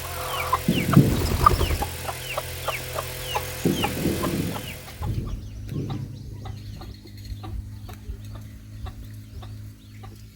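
Chickens clucking, with a run of short, high, falling peeps about twice a second in the first half and lower, softer calls after.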